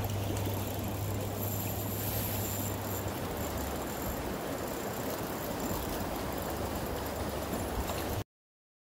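Steady rush of flowing stream water, with a low hum underneath for the first three seconds; it cuts off abruptly about eight seconds in.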